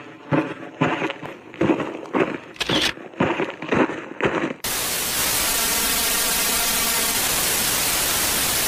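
A run of irregular thuds, then a loud, steady static hiss that cuts in suddenly about halfway through.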